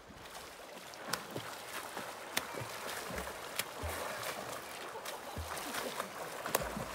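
Splashing of a swimmer's arm strokes and kicks in a river, a steady wash of churned water with several sharp slaps through it.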